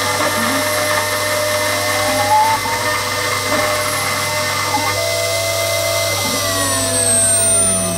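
Small home-made CNC engraving machine's spindle running with a fine engraving bit milling a recess into a brass plate: a steady whine and hum of cutting. Near the end several tones slide up and down in pitch as the head moves.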